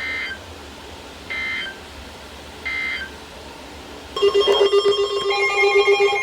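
Weather radio sending three short, chirping data bursts of a NOAA Weather Radio SAME alert header, about 1.3 s apart. About four seconds in a loud, steady warning alarm tone starts: the alert for the severe thunderstorm warning that follows.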